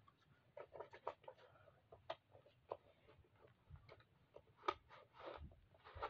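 Faint handling noises of foam toy darts and a plastic toy blaster: scattered light clicks and rustles, with one sharper click about three-quarters of the way through.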